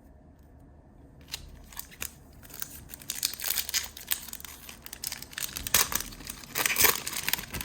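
Panini Prizm trading-card pack wrapper being torn open and crinkled: quiet at first, then scattered crackles about a second in that thicken into dense crinkling, loudest near the end.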